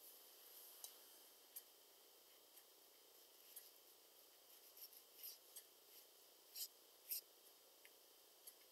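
Faint dry ticks and scratches of a small watercolour brush dabbing and dragging on paper, a dozen or so short ones, the loudest two about two-thirds of the way through, over near-silent room tone.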